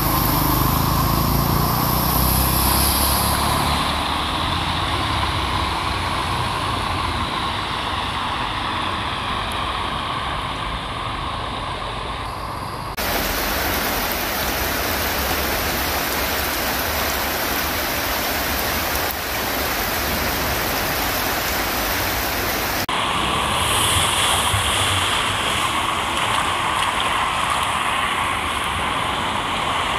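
Heavy rain and runoff water rushing along a flooded street, a loud steady rush. A car drives through the water in the first few seconds, and the sound changes abruptly about 13 and 23 seconds in.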